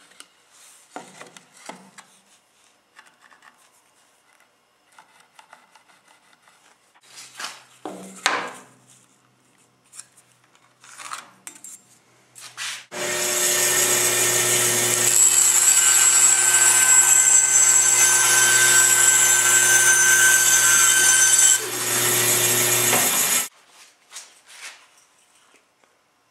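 Light knocks and clicks of wood pieces being handled, then a band saw runs for about ten seconds: a steady motor hum and whine with the blade rasping through wood. It cuts off abruptly.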